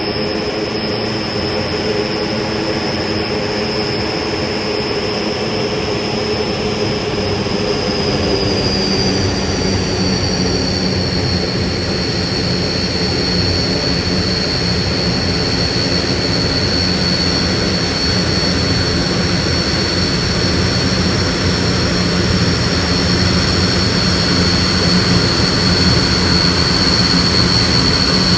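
AG600 amphibious aircraft's four WJ-6 turboprop engines running as it taxis: a steady high whine over a low drone. The whine drops a little in pitch about nine seconds in, and the noise grows slightly louder toward the end.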